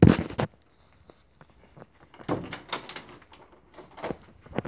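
Handling noise: a loud rustle right at the start, then scattered knocks and thumps as plush toys and a cardboard box are moved about, with sharp knocks near the end.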